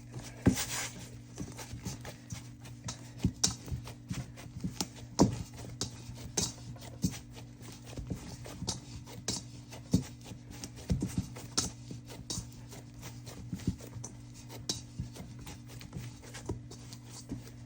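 Fried-bake dough being kneaded by hand, with irregular thumps and knocks as it is pressed and turned on the work surface, over a steady low hum.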